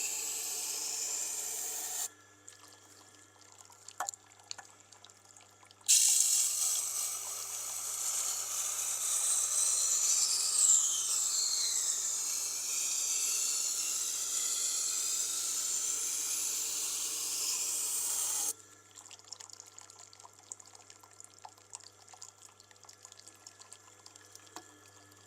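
Knife blade ground against the wet stone of a Tormek water-cooled sharpener, a steady gritty hiss in two stretches, the longer one lasting about twelve seconds. In the pauses between them there are faint ticks over the low hum of the sharpener's motor.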